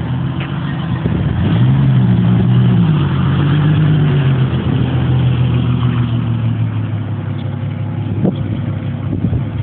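1998 Ford Mustang's V6 engine through a Cherry Bomb glasspack exhaust fitted with a turbo whistler, revved up about a second and a half in, held briefly, then dropping back and running steadily at a lower speed.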